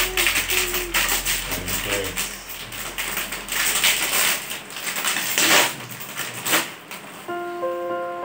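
Plastic snack packet crinkling as it is torn open and handled, with dry puffed snacks rattling out of it into a bowl. Music with held notes comes in near the end.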